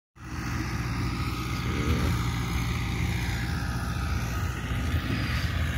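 Fiat 640 tractor's diesel engine running steadily while it pulls a rotavator through a field: a constant low engine hum with rough noise over it.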